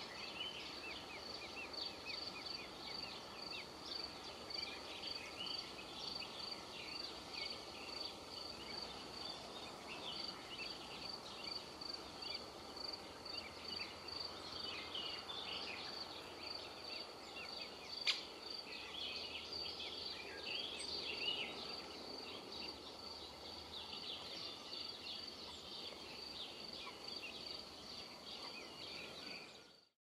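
Forest brook ambience: a faint steady trickle of water under a high note that pulses evenly throughout, with many short high chirps over it. A single sharp click comes about 18 seconds in, and everything fades out at the very end.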